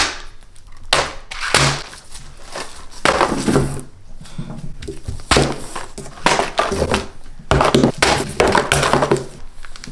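Candy boxes, a crinkly candy bag and plastic bottles set down one after another on a table covered with a plastic tablecloth: a run of thunks, knocks and rustles.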